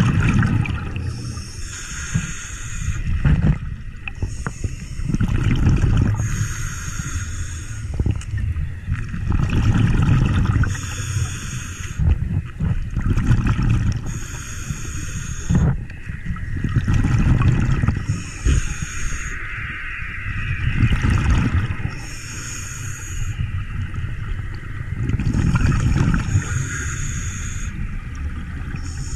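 Scuba diver breathing through a regulator, heard underwater: a hiss on each inhale alternating with a low bubbling burst of exhaled air, about one breath every four seconds.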